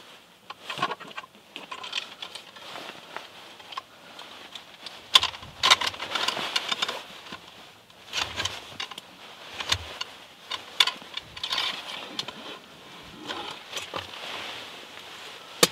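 Irregular rustling and crunching, sharp crackles and short scrapes that come in clusters, thickest about five to seven seconds in.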